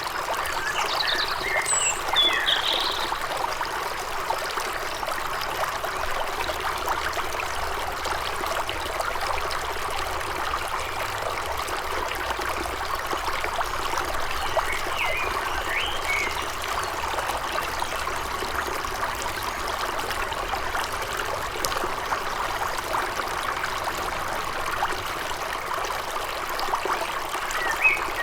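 Forest stream babbling steadily over stones, with short bird chirps about two seconds in, around the middle, and again near the end.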